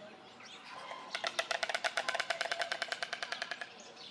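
White stork bill-clattering: a fast, even wooden rattle of the mandibles striking together, starting about a second in and lasting about two and a half seconds.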